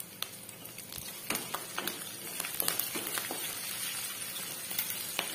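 Onions, green chillies and freshly added curry leaves sizzling in hot oil in a kadai, with a wooden spatula scraping and tapping against the pan as the tempering is stirred. The sizzle picks up about a second in.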